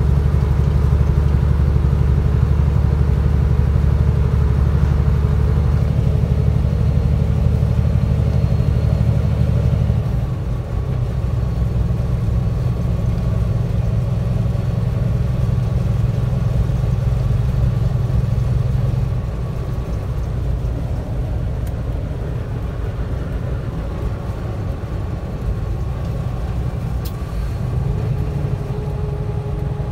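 Vehicle engine and road noise heard from inside the cab while driving: a steady low drone that drops in level about ten seconds in and again a little before twenty seconds.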